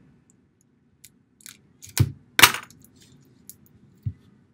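Plastic shrink wrap being torn and peeled off an album box: a few faint ticks, then a sharp crackle and a louder crinkling tear about two seconds in, and a small click near the end.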